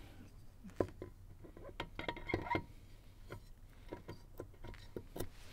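Light, scattered clicks and knocks of hard parts handled and fitted together as a propeller and its hardware are slid back onto an outboard motor's prop shaft, with a small cluster of taps a couple of seconds in.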